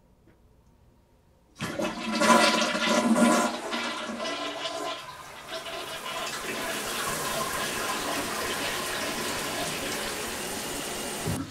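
Toilet flushing: a sudden rush of water about a second and a half in, loudest for the first couple of seconds, then a steady rush of running water that stops abruptly near the end.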